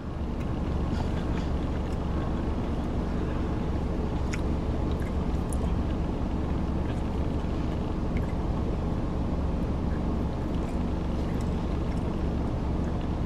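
Steady low hum of a car cabin with the engine idling, with a few faint small clicks now and then.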